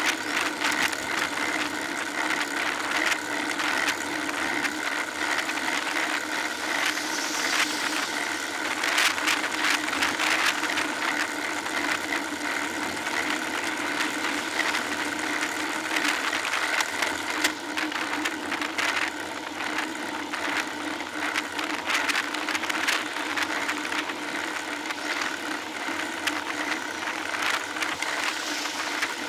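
Riding noise picked up by a bicycle-mounted rear camera on a road bike in motion: a steady hum of tyres and wind with frequent small rattling clicks from the mount, a little louder and rougher for a few seconds near the middle.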